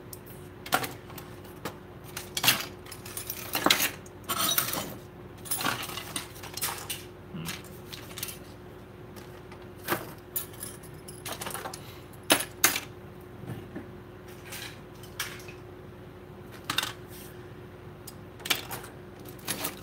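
Plastic blaster parts and small metal hand tools clicking and clattering in irregular knocks as they are picked up and set down on a workbench, over the steady hum of a running fan.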